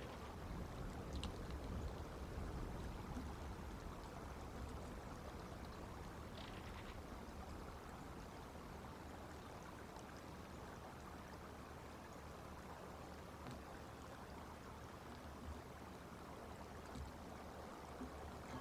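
Steady, faint rushing outdoor background noise, with a few brief, faint high sounds about a second in and again about six seconds in.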